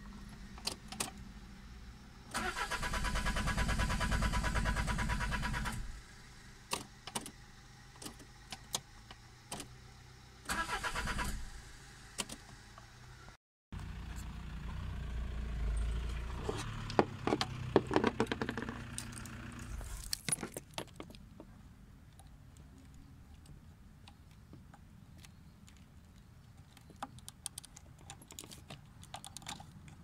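Starter motor cranking the Peugeot 306 2.0 HDi diesel engine for about three and a half seconds without it firing, then a second short crank of about a second that also fails to catch: a no-start that the owner traced to the engine ECU. Later come scattered clicks and handling sounds from the engine bay.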